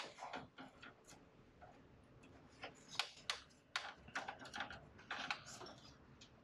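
Light, irregular clicks and taps of plastic as fibre tubes are pressed into the tabs and holders of a fibre enclosure's splice tray.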